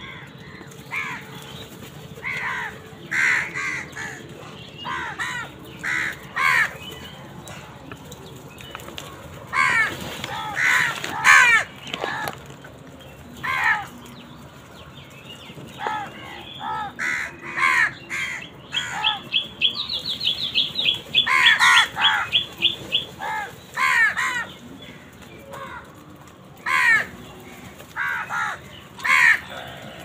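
A flock of house crows cawing: many harsh caws in irregular clusters, often several birds at once, busiest about a third of the way through and again after the middle. About two-thirds through, a rapid run of short high notes sounds for a few seconds alongside the caws.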